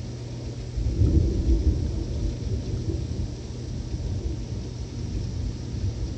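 Thunder from a supercell storm rumbling over steady rain: the rumble swells about a second in, then slowly dies away.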